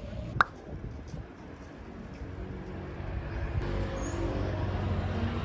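Low, steady rumbling background noise, like street or traffic ambience, with a single sharp click about half a second in. It grows louder over the second half.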